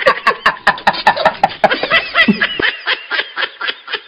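A person laughing: a long run of quick, even laughs, about five a second, slowly dying away.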